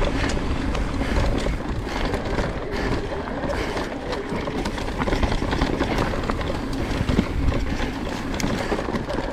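Electric mountain bike ridden over rough dirt trail: tyre and drivetrain noise with many small knocks and rattles over the ground, a low rumble of wind on the microphone, and a faint steady whine from the mid-drive motor.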